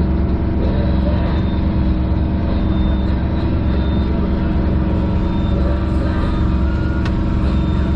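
Sailboat's auxiliary engine running steadily at a constant speed, motoring in under power.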